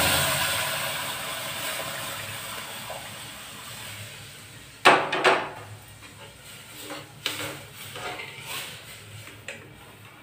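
Milk poured onto ghee-roasted semolina in a hot steel pan sizzles loudly, the hiss fading away over about four seconds. About five seconds in, a spoon clatters sharply against the pan, followed by several lighter knocks as it is stirred.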